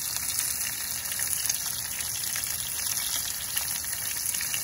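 Ahi tuna steaks searing in hot oil in a cast iron skillet: a steady sizzle with fine crackling.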